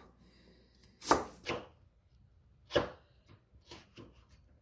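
Kitchen knife slicing chayote into thin strips on a cutting board: a few separate knife strikes, the loudest about a second in and near three seconds, with lighter taps after.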